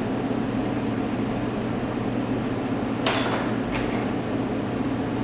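Metal bench scraper scraping across a plastic cutting board, two short strokes a little over half a second apart about three seconds in, over a steady machine hum.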